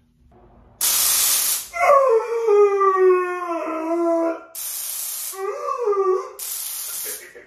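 A person wailing as if in pain: a long cry that falls steadily in pitch, then a shorter wavering one. Short, harsh bursts of hissing noise, each under a second, come between the cries.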